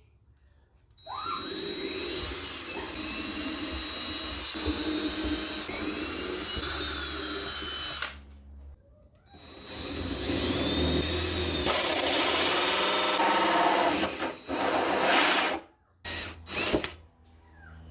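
Power drill boring pilot holes through a hatch panel: two long runs of several seconds each, the first spinning up with a rising whine, then a few short bursts near the end.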